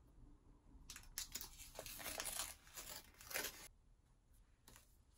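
A paper envelope being torn open, a run of quiet tearing and crinkling rasps over about three seconds, the loudest near the end of the run, followed by faint paper rustling.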